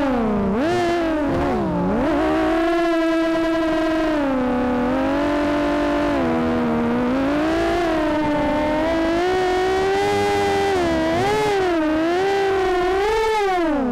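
FPV quadcopter's brushless motors whining, picked up by its onboard camera, the pitch sliding up and down with the throttle and dropping sharply about two seconds in and again at the very end.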